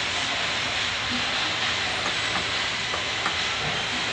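Steady hiss of background noise throughout, with a few faint clicks as small valve parts are fitted and a screwdriver starts a screw.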